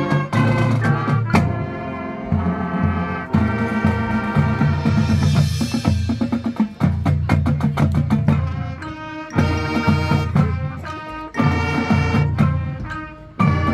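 Marching band playing a field show: brass ensemble over drums and percussion, with sharp accented hits throughout.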